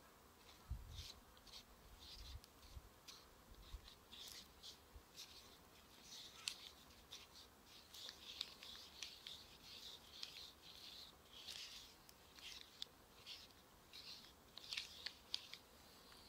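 A folded paper sachet stirring instant drink mix in a small cup, with faint, quick scratchy scrapes against the cup repeating about two or three times a second. There are a few soft low bumps in the first few seconds.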